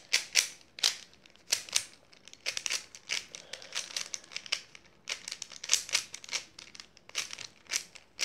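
YJ Guanlong v3 3x3 speedcube being turned fast by hand during a solve, its plastic layers clacking in quick, irregular runs of clicks with short pauses.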